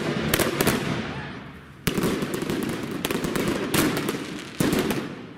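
Fireworks going off: a string of sharp bangs, several in the first second and then roughly one a second, over a continuous hiss and crackle.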